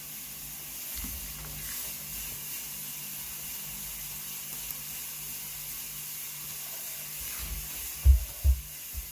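Fog machine running, a steady hiss of fog spraying out over a faint pump hum. Two dull low thumps come near the end.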